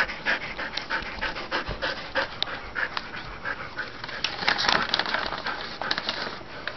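Dogs, a Siberian husky and a golden retriever, panting quickly and rhythmically, several short breaths a second.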